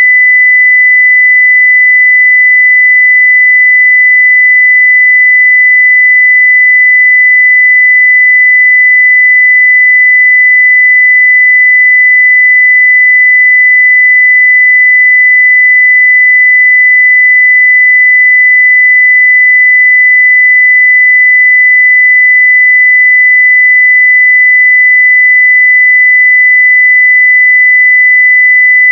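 A pure 2 kHz sine-wave test tone at full scale (0 dB), a single steady pitch held without change.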